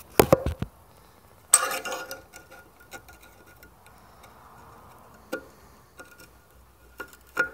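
Handling noises: a few sharp knocks as the camera is set down, a short clatter, then scattered light clicks and taps as the burner's air choke is opened up.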